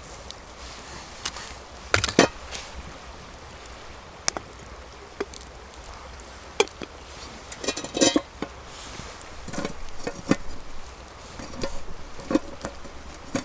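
Scattered, irregular knocks and taps on wood, with a quick cluster of them about eight seconds in.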